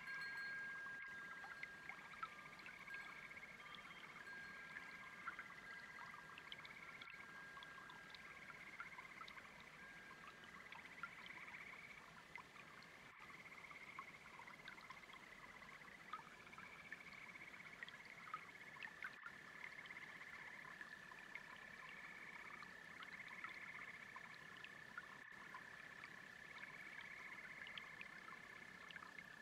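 Faint chorus of frogs and crickets trilling in repeating pulses over the soft, steady trickle of a babbling brook.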